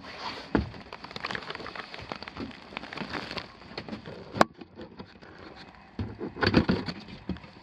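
Rattling, scraping and clicking of a ventilation vent cover being handled and fitted into place, with one sharp click about four and a half seconds in and a cluster of louder knocks near the end.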